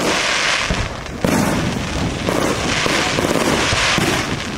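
Fireworks going off: aerial shells bursting and crackling, with a loud bang about a second in.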